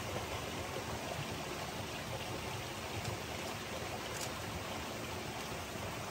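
Steady rushing of flowing stream water, an even hiss without breaks.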